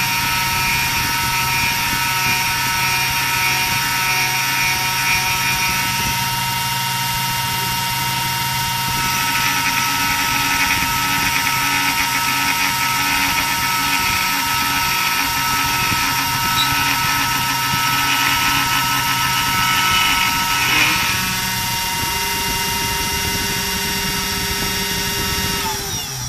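300 W spindle of a homemade CNC router running with a steady whine while a 3 mm flat end mill cuts a 1 mm deep pass into a wooden board, the cutting noise rising and falling as it goes. Near the end the whine falls in pitch as the spindle slows.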